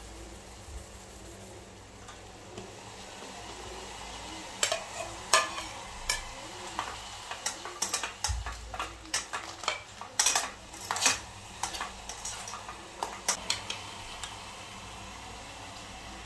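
Chopped tomatoes sizzling in oil in a small nonstick camping pot, with a spoon stirring and clinking against the pot for several seconds in the middle.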